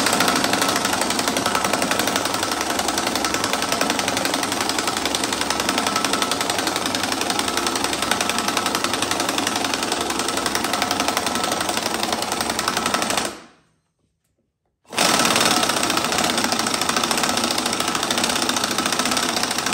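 Cordless impact wrench hammering steadily as it drives the forcing screw of a BeadBuster bead breaker down onto an ATV tire's bead to break it loose from the rim. The hammering stops for about a second and a half about two-thirds of the way in, then starts again.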